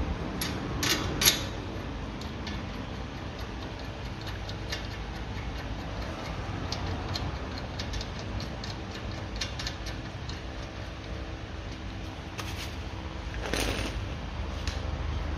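Scattered light metallic clicks and ticks of tools and bolts being handled while a wheel hub bearing is bolted into place, with a few louder clicks about a second in and a brief scrape near the end.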